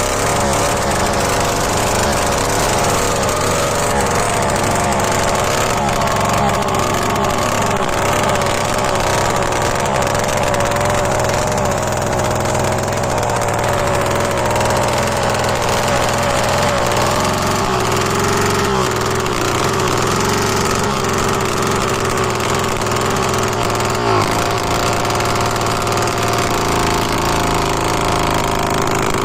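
Motorcycle engine running steadily, its exhaust note changed by a small clay surahi pot bolted over the silencer outlet.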